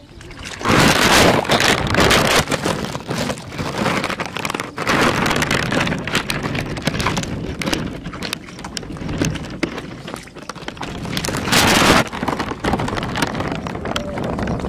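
Hands and legs splashing and sloshing in shallow muddy water, in uneven bursts of crackly splatter, loudest about a second in and again near the end.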